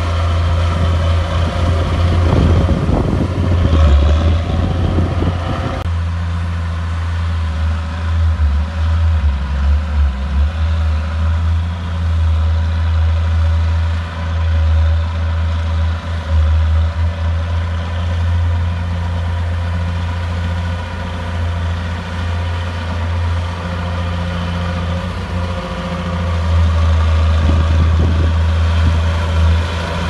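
Komatsu D31 crawler bulldozer's diesel engine running under load as it pushes wet dirt, its level swelling and easing. The sound is louder and busier for the first few seconds and changes abruptly about six seconds in.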